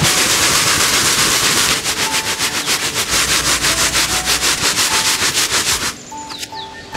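Coarse ground corn being shaken and sifted in a round woven bamboo sieve: a steady grainy hiss at first, then a rhythmic shaking hiss of about five strokes a second that stops about six seconds in.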